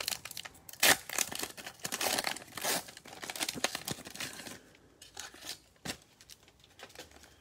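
Foil wrappers of Panini Mosaic football card packs crinkling and rustling as they are handled and torn. The crackle is dense for about the first four seconds, then thins to a few scattered rustles.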